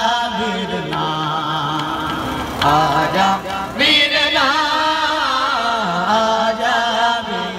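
A man's voice chanting a noha, a Shia mourning lament, in long held notes that bend and waver in pitch.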